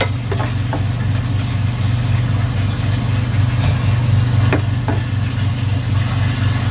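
Dough balls deep-frying in a pot of oil with a light sizzle, and a metal spoon clicking against the pot a few times, in pairs near the start and again around four and a half seconds in. A loud steady low hum, like a small motor running, lies underneath and is the loudest thing heard.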